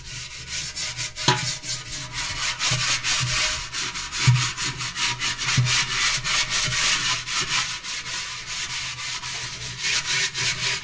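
Scrubbing a stainless steel sink in quick, even back-and-forth strokes, with a few dull knocks. The sink is scrubbed to work off stubborn hard-water scale that is not coming off in one pass.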